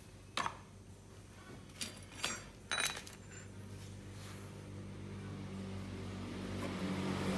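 A few light metallic clinks as the removed magneto flywheel and its starter-clutch gear are handled and set down. Over the last few seconds a vehicle engine hum rises and grows steadily louder.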